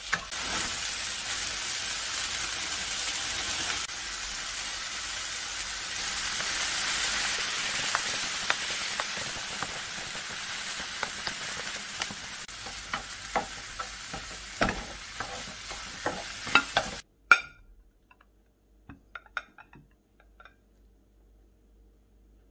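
Kimchi, duck meat and rice sizzling as they stir-fry in a frying pan. Chopsticks and then a wooden spatula knock and scrape against the pan, the clicks coming more often in the later part. The sizzle cuts off suddenly near the end, leaving a few faint light clicks.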